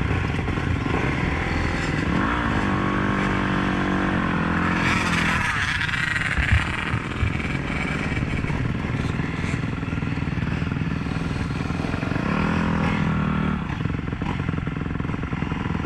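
Dirt-track motorcycle engine heard up close from a camera on the bike, pulling away and running on the throttle: its pitch climbs about two seconds in and holds, drops, then holds again later. Other motorcycles' engines run around it.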